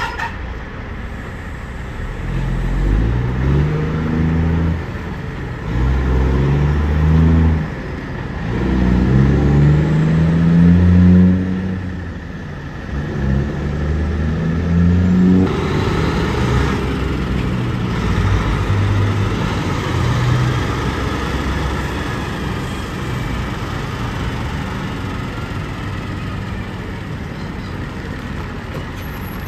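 Truck engine accelerating up through the gears, its pitch climbing and dropping back at each shift several times, then giving way to steady road noise.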